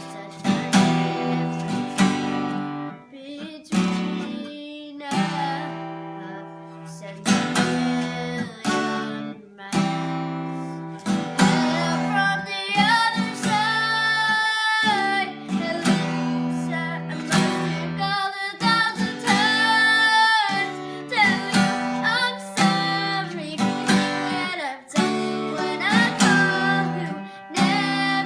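Acoustic guitar strumming chords, with a voice singing over it in places.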